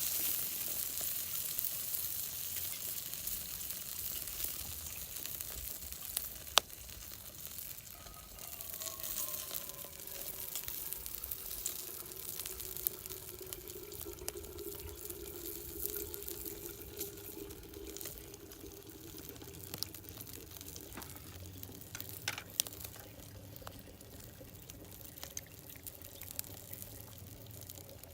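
Meat sizzling on a charcoal grill, a steady hiss that eases off a little over the first few seconds, with a sharp click about six and a half seconds in and another later.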